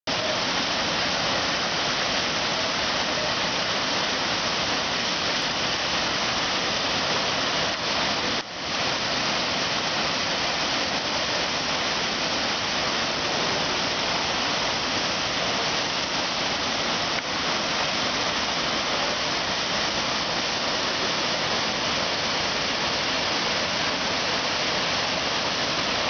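Waterfall in heavy seasonal flow pouring into a rocky stream: a steady, even rush of water, dropping out for a moment about eight seconds in.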